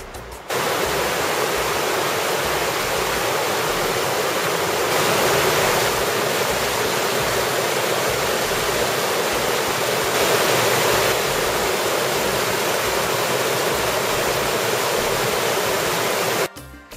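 Small waterfall cascading over rocks into a pool, a loud steady rush of splashing water. It cuts in suddenly about half a second in and cuts off shortly before the end.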